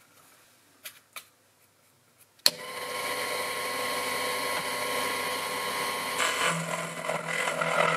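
Two light clicks, then the Proxxon FF 230 micro mill's spindle motor switches on with a sharp click about two and a half seconds in and runs with a steady whine. About six seconds in the sound grows louder and rougher as the 6 mm end mill starts cutting into the drilled hole in the steel die blank; the cut is noisy.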